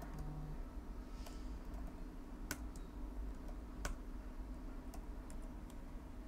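Typing on a computer keyboard: scattered key clicks, two sharper than the rest, over a steady low hum.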